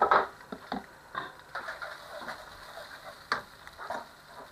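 Egg frying in oil in a nonstick pan, with a wooden spatula knocking and scraping on the pan as it breaks up the egg. There are a few sharp knocks, the loudest about three seconds in.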